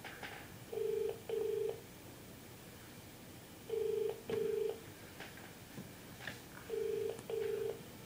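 Telephone ringback tone heard through a mobile phone's speaker: three double rings, each a pair of short steady tones, repeating about every three seconds. It means the dialled number is ringing and has not yet been answered.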